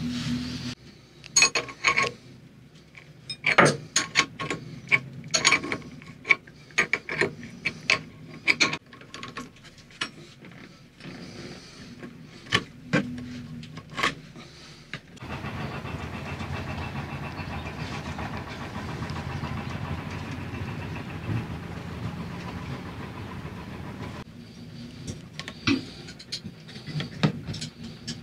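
Hand work on a Yanmar 4JH45 diesel's raw water pump cover and impeller: a run of sharp clicks, clinks and knocks from the parts being handled, with several seconds of steady noise between about halfway and near the end.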